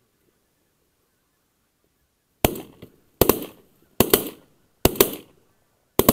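Several hunters' shotguns firing at geese flying overhead: five loud shots roughly a second apart starting a little over two seconds in, each ringing out briefly, some with a second report close behind.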